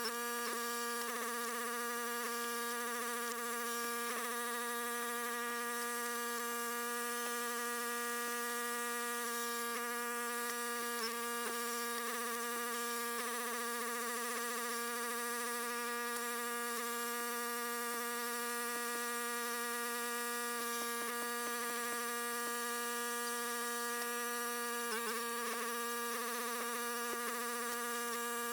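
A machine running with a steady buzzing hum, unchanging in pitch, with a few faint clicks over it.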